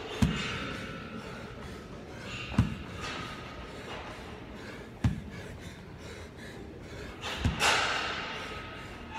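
A hex dumbbell thuds on the gym floor four times, about every two and a half seconds: its head touches down at the bottom of each dumbbell snatch. Hard, breathy exhales come between the reps.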